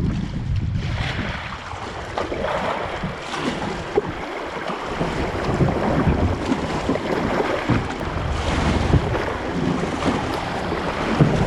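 River water rushing and splashing around a kayak running a riffle, with wind buffeting the microphone.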